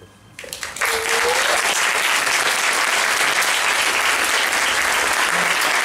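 Theatre audience breaking into applause as the music's last chimes die away, building within the first second into steady, loud clapping. A single rising whoop comes about a second in.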